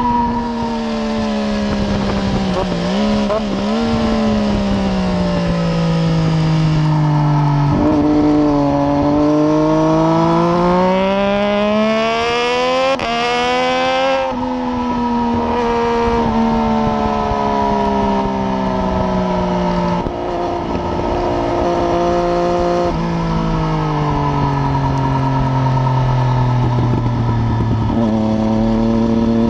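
Triumph Daytona 675's three-cylinder engine, with a decatted header and an unbaffled Arrow exhaust, ridden hard on track. The revs rise and fall repeatedly, with a long climb to a sharp upshift about halfway through, then a slow fall.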